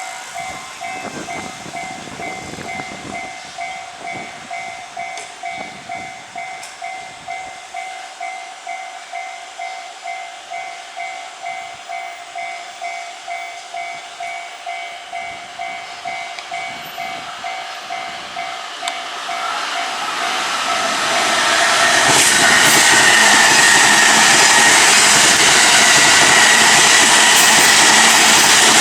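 Japanese level-crossing warning bell ringing a steady, repeating ding about one and a half times a second. From about twenty seconds in, a Chuo Line train passes through the crossing, its loud rush of wheels and running noise drowning out the bell.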